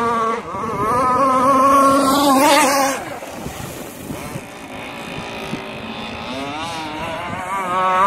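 Radio-controlled catamaran's Zenoah G260PUM two-stroke petrol engine running at speed across the water. Its note wavers up and down; it is loudest for the first three seconds, drops back, and builds again near the end.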